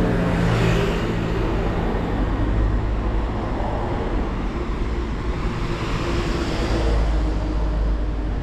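Road traffic passing close by: motor vehicles driving past with engine hum and tyre noise, swelling as one passes about a second in and again around six to seven seconds in.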